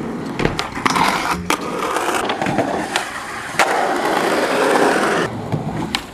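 Skateboard wheels rolling on concrete, with sharp clacks of boards popping and landing, and the grinding scrape of trucks along metal rails; the loudest clack comes about three and a half seconds in.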